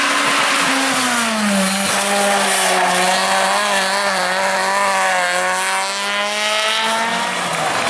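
Competition car engine held at high revs, its note dropping a little about a second and a half in and then holding nearly steady until near the end.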